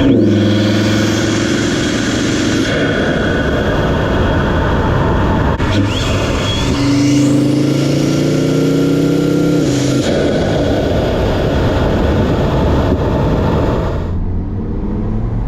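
Audi RS3 8P's turbocharged five-cylinder engine, fitted with a 034 Motorsport carbon intake, pulling hard under acceleration with loud intake noise. The engine note climbs in pitch and breaks off twice, near three seconds in and again about ten seconds in.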